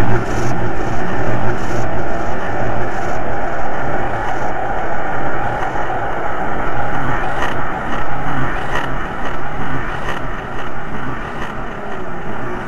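Dense, loud rumbling wall of noise from an experimental dark-ambient noise piece, with a few faint clicks in the second half and a slight easing toward the end.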